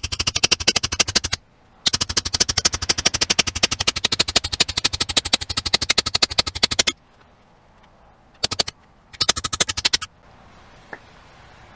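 Small hammer rapidly striking the steel cap of a scythe peening jig, several sharp metallic blows a second, to draw out and thin the scythe blade's edge. The strikes stop briefly early on, run steadily for about five seconds, then come in two short spurts before stopping near the end.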